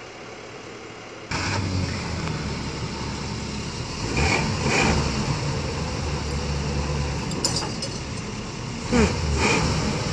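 A vehicle engine starts suddenly about a second in and keeps running at idle. It is revved up briefly about four seconds in and again near the end.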